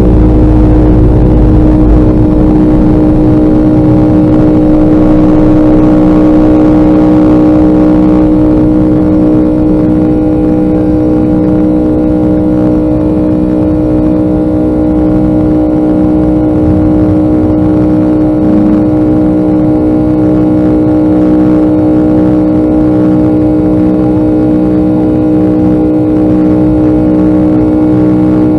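Boeing 757-200 engines droning steadily, heard from inside the passenger cabin: a loud even roar carrying several steady humming tones. A deep rumble fades in the first couple of seconds, and the sound eases slightly about eight seconds in.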